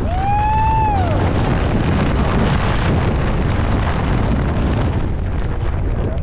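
Wind buffeting the camera microphone as a tandem skydiving pair descends under an open parachute canopy, a loud steady rush. Near the start a high whoop rises and falls, lasting about a second.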